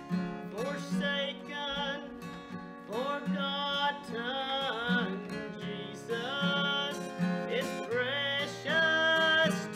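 A man singing a gospel song and accompanying himself on a strummed acoustic guitar, the sung lines rising and falling over the guitar.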